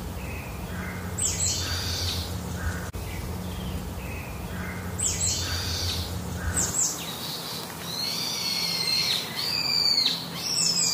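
Forest birds calling: sharp high whistles that slide downward in pitch, a few at first and in quicker succession near the end, with softer lower notes between them. Under them runs a low steady hum that stops about two-thirds of the way in.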